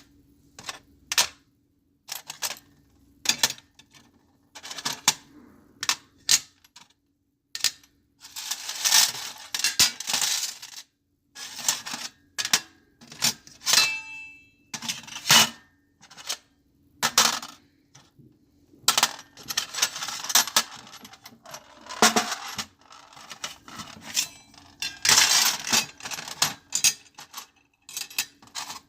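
Small metal objects dropped, set down and shuffled on a metal tray: many sharp, separate clinks with three longer spells of rattling clatter, and one clink near the middle that rings on briefly. A faint steady hum lies underneath.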